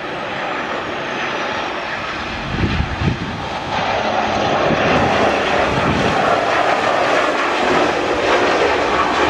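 Jet engines of a Malaysia Airlines Boeing 737 landing and rolling out, a steady rush that grows louder. There are a few low thumps near three seconds in, and the engine noise jumps up sharply a little under four seconds in, typical of reverse thrust during the landing roll.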